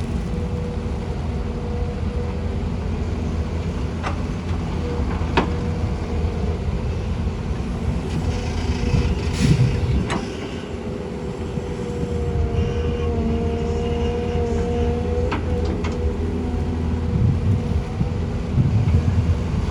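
Heavy diesel earth-moving machinery, an excavator and dirt-hauling trucks, running steadily at work. A few sharp metallic knocks sound over it, and a steady whine joins briefly past the middle.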